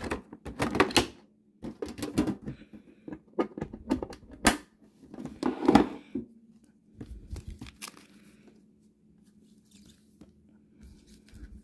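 Foil and plastic packaging of Pokémon card packs crinkling and rustling as it is handled, with a few sharp knocks. It is busiest in the first six seconds and sparser and quieter after, over a faint steady hum.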